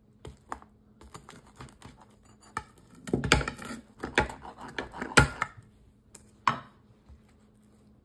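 Pizza wheel cutter rolling and scraping through a pizza's crust against a plate, a string of irregular clicks and scrapes, the loudest in a cluster about three to five and a half seconds in, with one more sharp stroke a second later.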